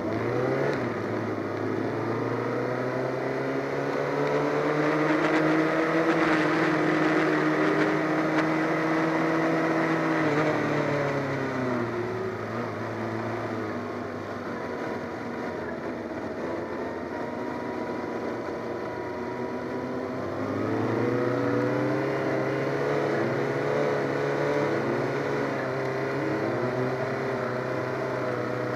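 Onboard sound of a Yamaha FZ600's inline-four engine being ridden. The revs climb in the first second, hold, then drop away at about 11–13 seconds, run lower for several seconds, and climb again at about 20 seconds.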